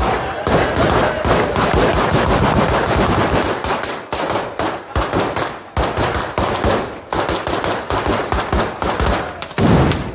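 A devotional ground battery of firecrackers (batteria pirotecnica) laid along the street, going off in a rapid, continuous rattle of bangs. The heaviest bang comes just before the end.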